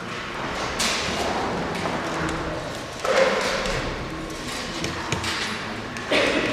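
Hammer knocks on a wooden cross echoing in a large church: three sharp blows, about a second in, about three seconds in and near the end, each leaving a lingering echo.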